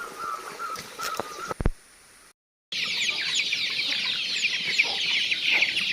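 A large flock of young chicks peeping together in a dense, continuous chorus of high chirps, starting abruptly after a short gap about two and a half seconds in. Before it come scattered clicks over a faint wavering tone, ending in a thump.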